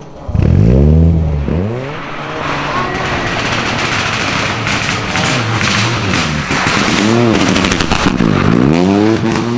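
Rally car engines revving hard, the pitch climbing and falling again and again with gear changes. There is a loud burst of revs about half a second in. Then a Peugeot 208 rally car comes up to a hairpin and goes through it, with sharp crackles in its last few seconds.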